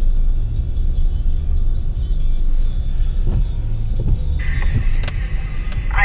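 Low, steady rumble of a vehicle's engine and tyres rolling over snow, heard from inside the cab. About four and a half seconds in, a steady higher hiss with a faint tone cuts in suddenly.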